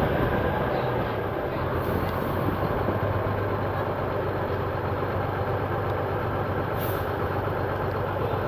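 The bus's Detroit Diesel 6-71 two-stroke inline-six running with a steady low hum, heard from inside the bus at an open window. There are two brief high hisses, about two seconds in and about seven seconds in.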